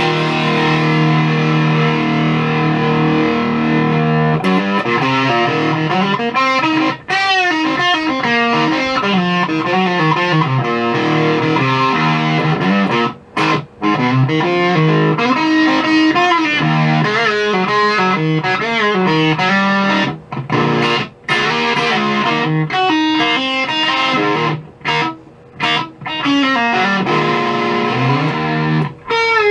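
Electric guitar played through a Maestro FZ-1A fuzz pedal clone, recorded on a phone: a held fuzzed chord rings for the first few seconds, then riffs and single-note lines follow with a few short breaks.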